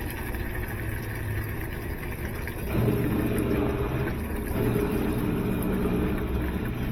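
GE top-load washer's drain pump running steadily in test mode, pumping water out: the pump works. The hum turns louder and fuller about three seconds in.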